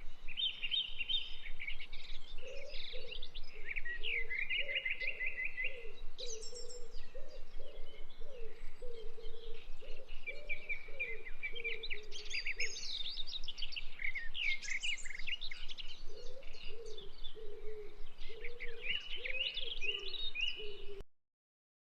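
Several birds chirping and singing in quick trills, with a lower call of short repeated notes underneath; it all stops abruptly near the end.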